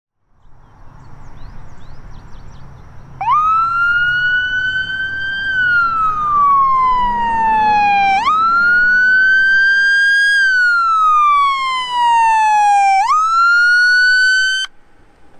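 Police car electronic siren on a slow wail: each cycle climbs and then glides slowly down, two full cycles and the start of a third, stopping abruptly about a second before the end. A rushing noise grows louder before the siren starts.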